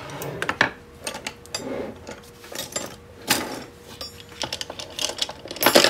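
Wood chisels being handled and set down on a table: irregular clicks and knocks, the loudest about three seconds in, then a quick run of clinks near the end.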